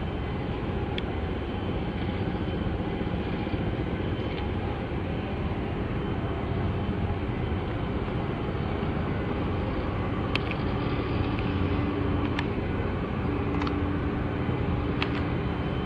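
Steady low rumble and hiss of outdoor machinery and air, with a faint low hum joining about halfway and a few sharp clicks in the second half.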